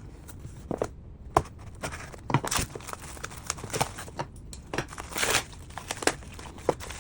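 A shipping box being opened by hand: irregular crinkling and tearing of packaging with sharp clicks and rustles.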